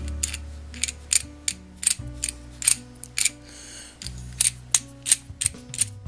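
Irregular sharp metallic clicks and clinks from the metal collet and ferrule of an antique wooden-handled multi-tool as they are turned and taken apart by hand, over soft background music with sustained low notes.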